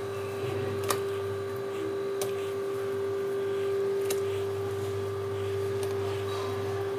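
A steady hum, with a few faint sharp clicks as fried lentil dumplings are set by hand into a steel pot of whipped yogurt.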